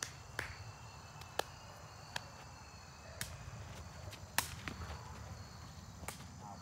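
Sharp clicks or snaps, about seven at irregular intervals, the loudest one about four seconds in, over a faint steady high whine and a low rumble.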